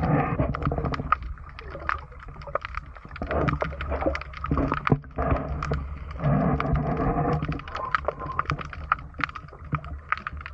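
Muffled sound picked up underwater: a steady low rumble with scattered sharp clicks and crackles, and muffled pitched drones that come and go for about a second at a time.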